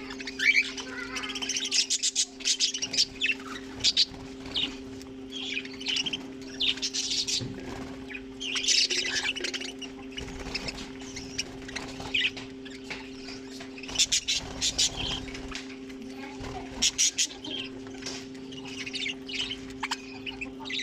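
A colony of budgerigars and cockatiels chirping, chattering and squawking continuously, many short calls overlapping, over a steady low hum.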